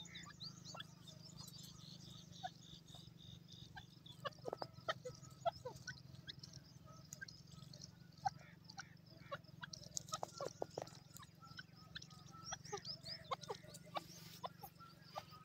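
A francolin (teetar) giving short, soft clucking notes at irregular intervals as it forages on the ground.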